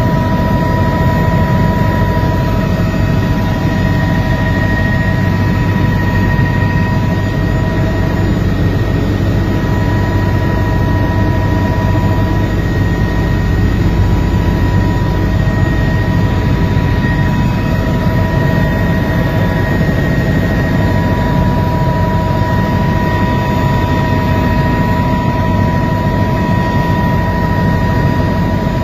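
Helicopter in flight heard from inside the cabin: a steady, deep noise of the rotor and engine with a few steady whining tones over it.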